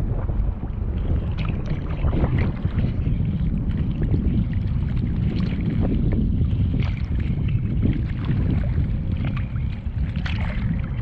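Wind buffeting the microphone at the water's surface, a steady low rumble, with choppy waves lapping and splashing against the camera in short irregular bursts.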